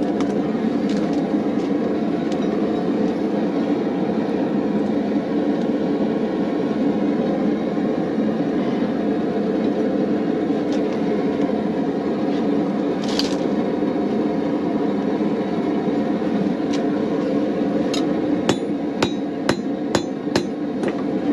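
Steady roar of a gas forge burner. In the last few seconds it is joined by a quick run of about eight hammer blows on hot rebar against the anvil as a hook is forged.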